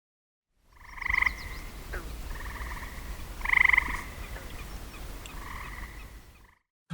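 A frog calling: four short pulsed trills, two loud and two softer, over a low rumble.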